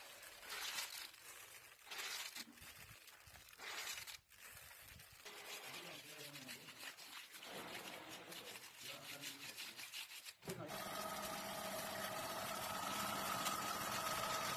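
Bursts of rustling and scraping as terrazzo chips are scattered and spread by hand over the wet floor, with faint voices. About two-thirds of the way in, a floor grinding machine starts a steady run: an even hum with a steady whine over it.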